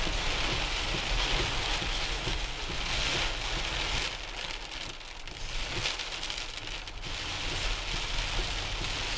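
Heavy rain pelting a car's windshield and roof, heard from inside the car, over a steady low rumble. The rain eases for a few seconds about halfway through, then picks up again.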